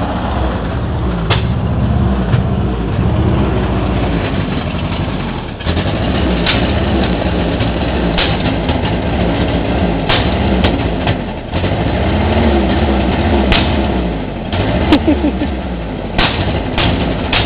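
Truck engine running, revving up and down repeatedly, with scattered sharp clicks.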